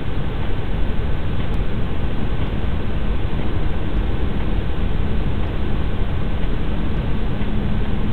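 A steady hum of medium intensity, with a constant low tone under heavy hiss, picked up by a Xiaomi Xiaofang security camera's microphone. The recording is band-limited, so it sounds dull and muffled.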